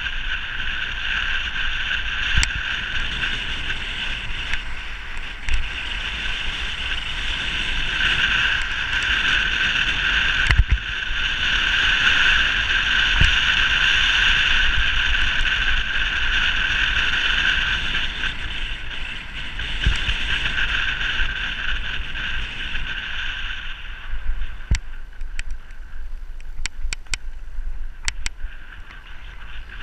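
Steady rushing of wind and road noise on a camera riding a road bike downhill at speed. The rush eases after about 24 seconds, and a few sharp clicks stand out near the end.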